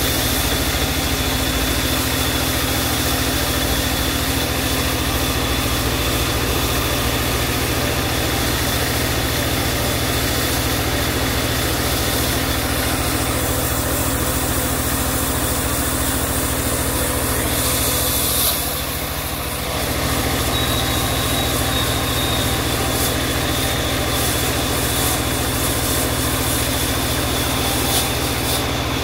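Engine-driven portable sawmill running steadily, a constant machine drone with a dense hiss over it. The level dips briefly a little past halfway.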